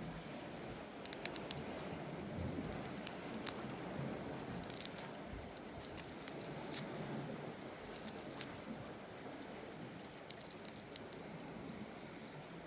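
Long metal tweezers clicking and scraping against gooseneck barnacle shells in short bursts of light clicks every second or two, over a steady hiss.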